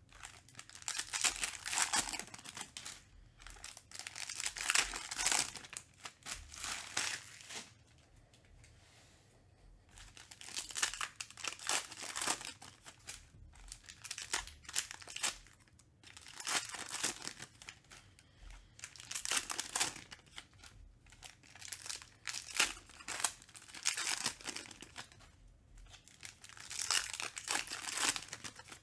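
Foil trading-card packs being torn open and crinkled by hand, in irregular bursts of crackling, with cards shuffled and set down between them. There is a quieter lull about eight seconds in.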